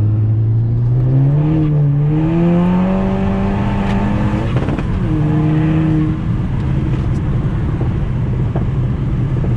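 Seat Leon Cupra's tuned 2.0 TFSI turbocharged four-cylinder, fitted with a full downpipe, pulling hard: its note climbs steadily for about four and a half seconds. The pitch then drops abruptly as it shifts up, and the car settles into a steady cruise with tyre and wind noise. Heard from inside the cabin with a window slightly open.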